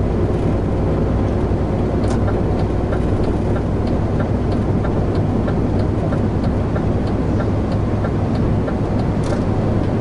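Lorry's diesel engine and road noise droning steadily inside the cab, with the engine revs low after they have just dropped. From about two seconds in, a faint regular ticking comes about two to three times a second.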